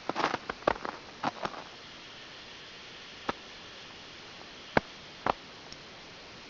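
Footsteps crunching on crusted spring snow: a short run of irregular crackles, then three single sharp cracks spaced out over the next few seconds, over a steady hiss.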